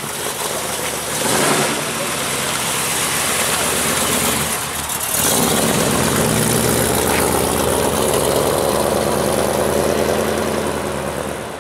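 Engine of a mid-1960s Chevrolet full-size hardtop with twin exhausts, pulling away: a brief rev about a second in, a short drop in level just before halfway, then louder steady running as the car drives off, easing near the end.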